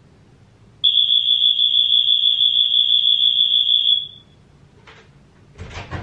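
Edwards fire-alarm horn/strobe sounding one loud, steady, high-pitched electronic tone for about three seconds as the room's doorbell signal. It is wired into an accessible hotel room's door button so that deaf guests notice a visitor. A brief thump follows near the end.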